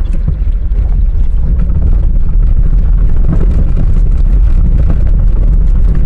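Car driving along a dirt road strewn with loose stones: a steady low rumble of the tyres on the gravel, with many small ticks of stones under the wheels.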